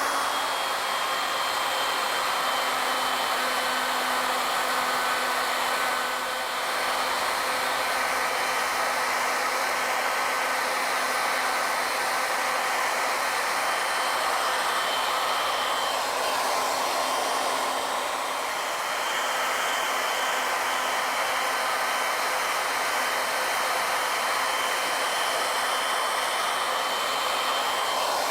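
Router on an ornamental mill running steadily with a high whine while its V-groove bit cuts a spiral groove along a wooden table leg. The level dips slightly twice.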